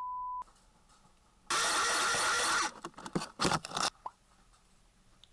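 A censor bleep, one steady beep of about half a second, covers a swear word; about a second and a half in comes a loud hiss lasting just over a second, followed by a few knocks and clicks.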